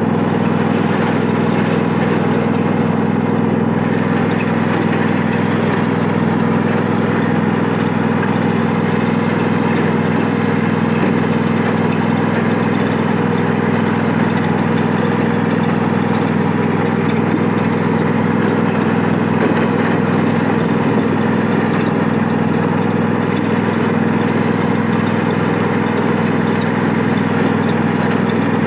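Riding lawn mower engine running at a steady speed, a constant drone with no revving or breaks.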